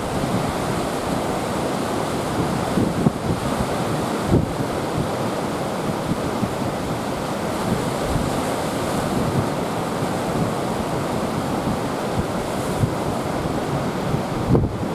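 Ocean surf from a typhoon swell: a steady rush of breaking waves. Wind buffets the microphone in several short gusts.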